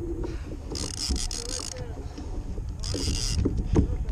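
Fishing reel's drag buzzing out twice as a hooked roosterfish takes line, a longer run about a second in and a shorter one near three seconds, over wind and water rumble on the kayak.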